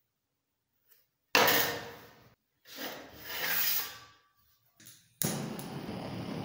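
A sudden loud knock and scrape against wood about a second in, then a second, swelling rubbing scrape. Near the end a gas torch lights suddenly and burns with a steady hiss.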